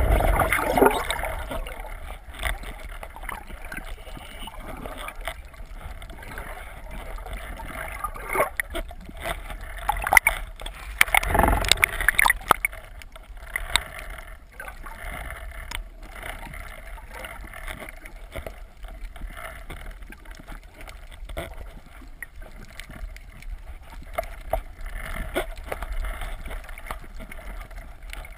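Underwater sound heard through a camera housing as a spearfishing diver swims: muffled water rushing and gurgling over a deep rumble, with scattered clicks and knocks. The water noise swells near the start and again about ten to twelve seconds in.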